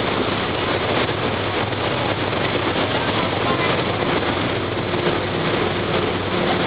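Steady rush of wind and churning wake water from a moving ferry, with a low steady engine hum underneath.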